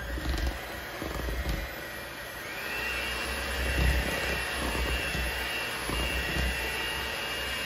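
Electric hand mixer running, its beaters churning flour into thick cake batter in a metal bowl. The motor's whine rises in pitch about two and a half seconds in.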